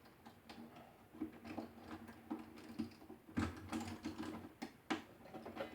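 Plastic keys and key mechanism of a Kawai electronic keyboard clicking and knocking irregularly as one key is worked loose from the keybed, with a louder knock a little past halfway.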